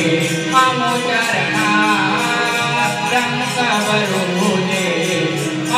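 Live naman folk song from the stage band: a sung melody with keyboard over a steady, quick percussion beat of bright ticks about five a second.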